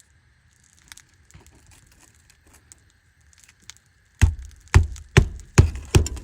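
Hammer driving a roofing nail into an asphalt shingle: about five sharp strikes, roughly two a second, starting about four seconds in, after faint clicks of handling.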